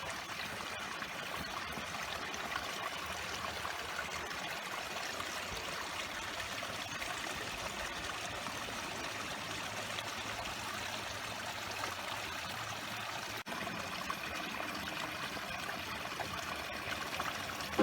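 Running water of a small stream, a steady trickling rush, with a momentary break about three-quarters of the way through.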